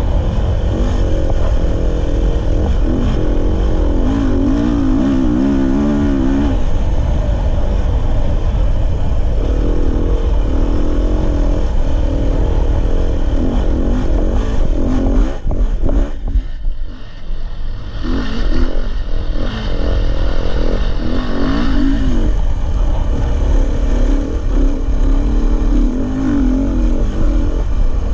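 Dirt bike engine running as the bike is ridden, its pitch rising and falling with the throttle, over a steady low rumble. About halfway through the engine drops off for a second or two, then picks up again.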